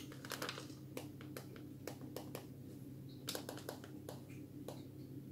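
A series of sharp, irregular clicks and taps, some coming in quick clusters, over a steady low hum.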